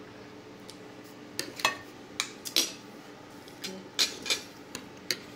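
Metal cutlery clinking against a dinner plate: about nine short, sharp clinks at irregular intervals, over a faint steady hum.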